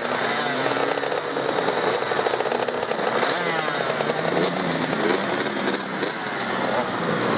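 Several small dirt bike engines running together at a motocross start area, their pitch rising and falling as riders blip the throttles.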